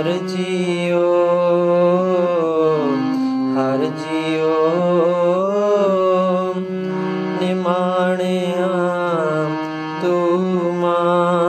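Harmonium playing the shabad melody over steady held drone notes, with a voice singing along and sliding between notes.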